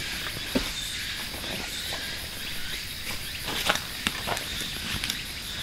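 A steady, high insect chorus of summer forest insects, with a fine rapid pulsing in it. A few scattered crunching footsteps and small clicks on dry leaf litter and dirt stand out above it, the loudest a little past halfway.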